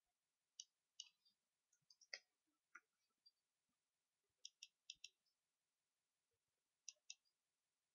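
Faint computer keyboard keystrokes and mouse-button clicks: a run of separate taps in the first few seconds, then a quick cluster of clicks about halfway through and a close pair near the end.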